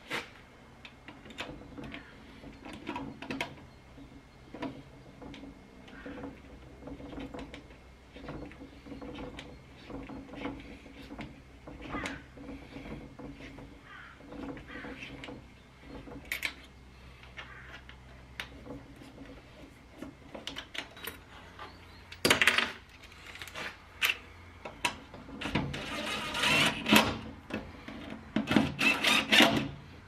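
Scattered metal clicks and knocks of hand work on a sliding gate bolt fitted to a steel bus door, becoming a louder, busier clatter in the last several seconds.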